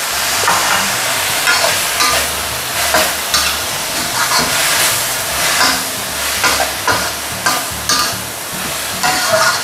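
Chopped Chinese chives sizzling in hot oil in a metal wok, with a metal spatula scraping and tossing them in about two strokes a second.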